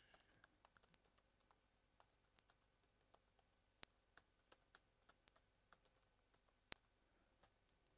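Faint keystrokes on a computer keyboard: irregular typing, with two sharper key presses, one about four seconds in and one about a second before the end.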